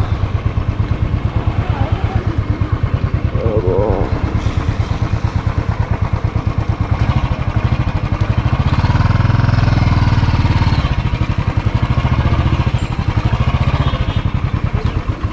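Royal Enfield Bullet 350's single-cylinder four-stroke engine running under way, with a steady, evenly pulsing thump. It grows louder about nine seconds in and eases back about two seconds later.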